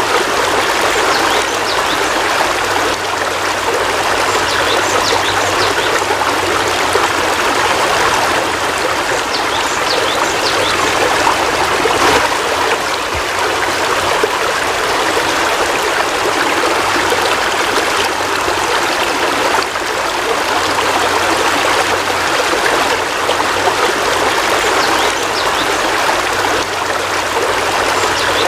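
Heavy rain falling steadily, a dense, even hiss of water with no let-up.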